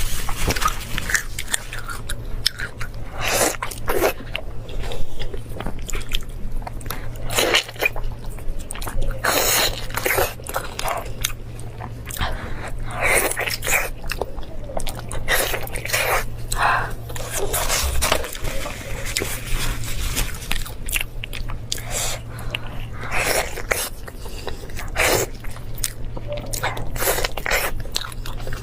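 A person biting and chewing fatty meat close to the microphone: irregular wet, crunchy bites and chews throughout, over a steady low hum.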